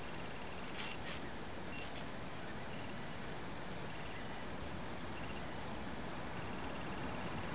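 Steady outdoor background hiss with two short high-pitched sounds about a second in, and a faint, rapid high beeping of a distant vehicle reversing alarm that comes and goes and then sets in near the end.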